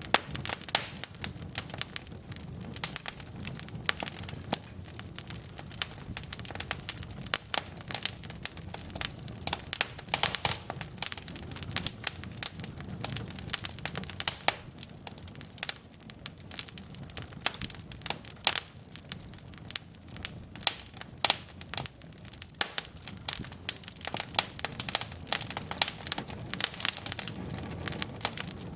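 Burning logs in a fireplace crackling and popping in irregular sharp snaps, over the low steady rumble of the flames.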